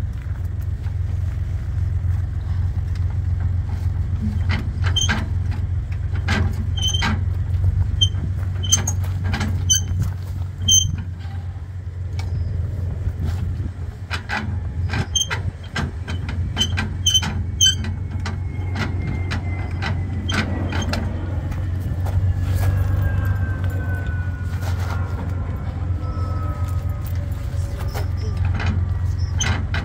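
Metal clicks and clanks, some with a short ring, as a trailer's hitch coupling head is worked and rattled against a car's tow ball, over a steady low hum. The coupling will not latch because the Australian-spec tow ball does not fit the European coupling. A faint falling whine runs through the second half.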